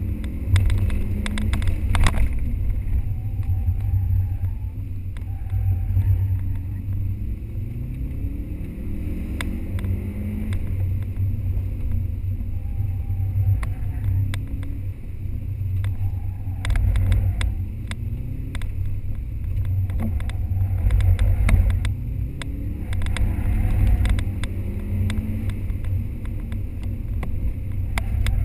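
Subaru Impreza's flat-four engine heard from inside the cabin, its pitch climbing and dropping again and again as the car is driven hard, over a heavy low rumble of road and cabin noise, with scattered sharp clicks.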